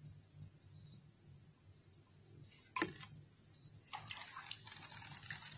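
Bamboo lift net being hauled up through floodwater: a sharp knock nearly three seconds in, then water splashing and dripping from about four seconds on as the net nears the surface.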